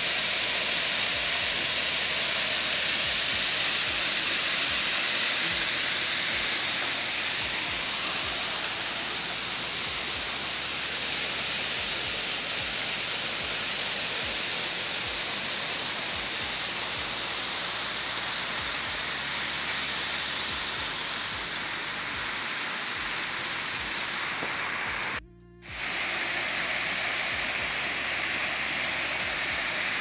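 Steady rushing roar of a waterfall, a hissy wash of falling water. It cuts out for a split second near the end.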